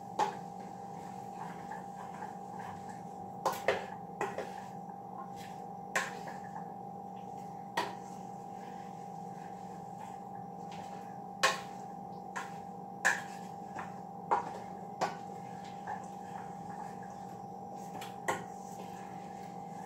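A cooking utensil stirring vegetables sautéing in a pan, knocking and clicking against the pan at irregular moments, over a steady hum.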